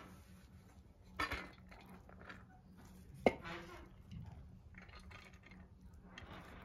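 A steel spoon scoops biryani rice from a metal pot and tips it onto a steel plate, scraping softly against the metal several times. About three seconds in comes one sharp metal-on-metal clink.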